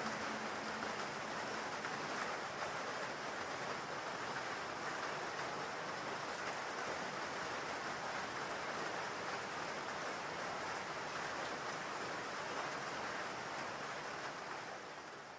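Steady rain falling, an even hiss of water, fading out near the end.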